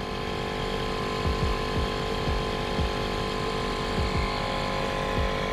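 Portable electric tire inflator running with a steady motor hum and whine as it pumps air into a trailer tire.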